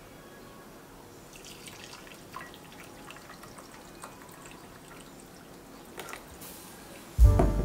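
Brewed coffee poured from a glass French press into a glass tumbler: a faint, steady trickle with small splashes and drips. Near the end, music starts suddenly and much louder.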